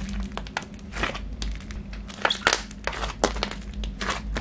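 Soft clay-based butter slime being pressed and kneaded by hand, giving a run of irregular small clicks and pops, with a few louder ones about halfway through.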